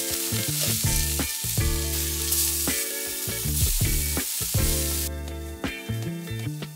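Breaded pea-protein patties sizzling hard in hot oil in a nonstick frying pan as they are turned with a spatula. The sizzle falls away about five seconds in, leaving background music.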